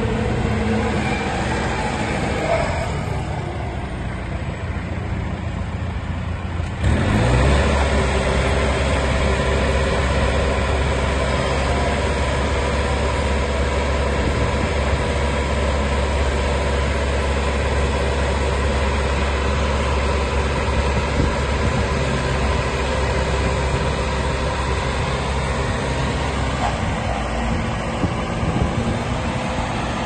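Diesel engine of a 1999 Claas 516 telehandler running. About seven seconds in, the sound changes abruptly to a louder, steady engine note with a strong low hum, which holds to the end.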